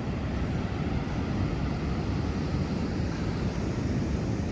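Pacific Ocean surf breaking on the beach as a steady, low rumbling wash, with wind on the microphone.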